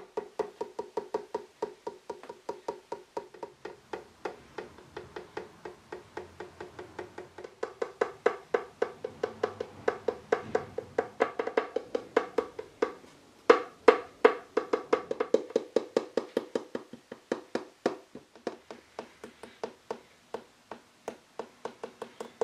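Background music: a quick, steady run of short percussive notes, about five a second.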